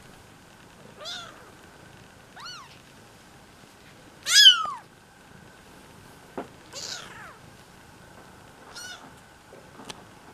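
Young kittens, almost four weeks old, mewing: five short high-pitched mews a second or two apart, each rising and falling, the loudest about four seconds in.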